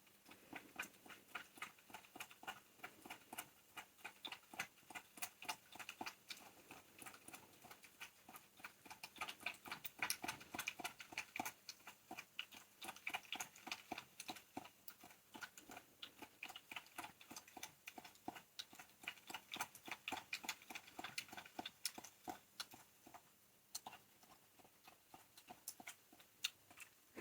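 A fox chewing crunchy carob dog treats: a long run of quick, sharp crunching clicks, about two to three a second, thickest in the middle.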